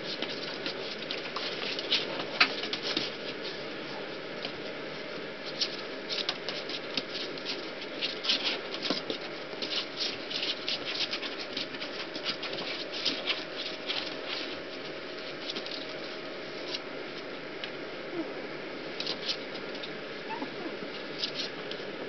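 Rat Terrier puppies' claws scratching and pattering on a plastic kiddie pool and towels as they clamber about: light, irregular scratchy clicks, busiest in the middle and again near the end, over a steady hiss.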